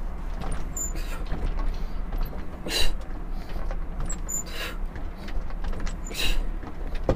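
A man breathing out sharply four times, about once every second and a half, in rhythm with sit-up crunches in a crane cab seat, over a steady low hum.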